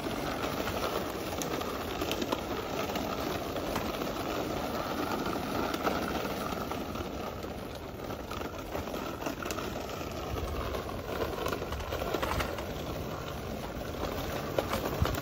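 Small wheels of a toddler's ride-on bike rolling over a paved path: a steady rattling rumble with a faint whine in it and a few light knocks.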